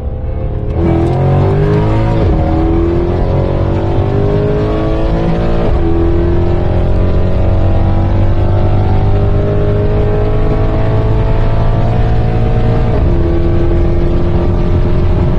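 Mercedes-AMG V8 heard from inside the cabin under hard acceleration. Its pitch climbs and drops sharply at each upshift, about two, six and thirteen seconds in, then holds a steady note near the end.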